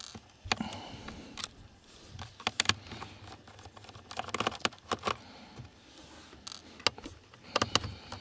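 Small screwdriver undoing screws in a Toshiba C850 laptop's plastic bottom case: scattered light clicks and taps of the metal tip on the screws and the case.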